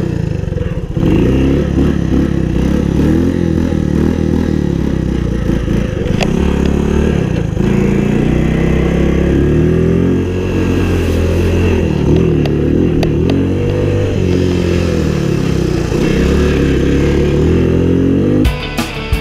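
Honda ATC110 three-wheeler's small single-cylinder four-stroke engine running under a rider, revving up and falling back again and again. It cuts off about a second before the end.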